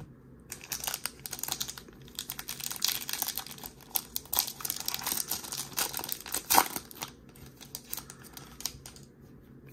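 A Topps baseball card pack's plastic wrapper being torn open and crinkled by hand: a rapid crackle that starts about half a second in and thins out over the last few seconds.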